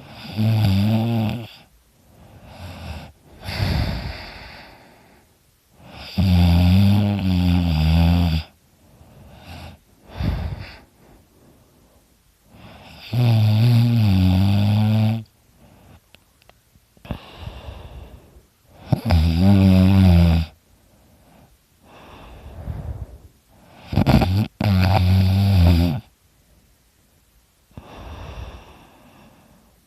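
A man snoring heavily in his sleep: five loud, long snores about every six seconds, each a low wavering rumble, with quieter breaths between them.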